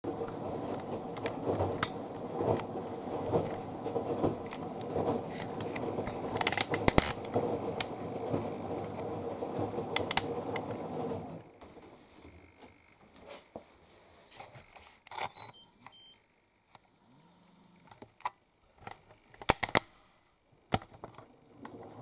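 A steady noise with scattered clicks for the first half, then quieter: button clicks and a short run of electronic beeps at several pitches from the Hoover Link X Care condenser dryer's control panel as its Wi-Fi option is selected, with a few sharp clicks near the end.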